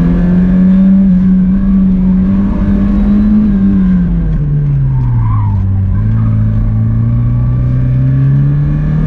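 1986 Porsche 944's four-cylinder engine being driven hard on an autocross course. The revs hold high, fall for a couple of seconds about halfway through, then climb steadily again.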